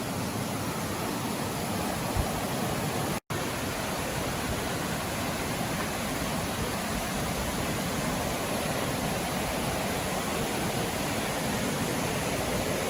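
Steady rushing roar of a waterfall, even and unbroken, cutting out for an instant about three seconds in.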